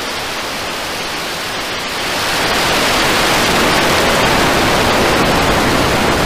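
SpaceX Starship SN10's three Raptor rocket engines firing at liftoff: a loud, steady rushing noise that grows louder about two seconds in.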